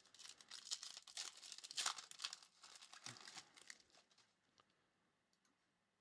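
Foil trading-card pack wrapper crinkling and being torn open by hand, a dense crackle for about four seconds that then dies away to a few faint clicks.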